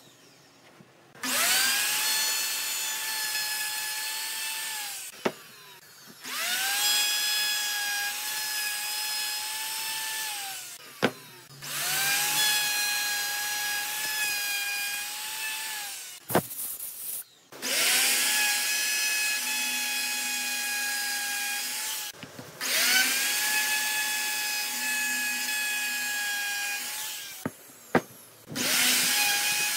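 Makita plunge router cutting into wood: a steady high whine with the hiss of the bit chewing through the timber. It comes in six separate runs, each rising in pitch as it starts and dropping as it stops, with short gaps and a few sharp clicks between them.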